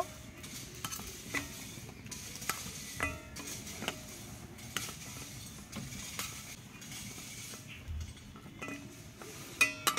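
Long steel spoon turning fried goja pieces in sugar syrup in a stainless steel bowl, with scattered light clinks and taps of metal on metal, some ringing briefly.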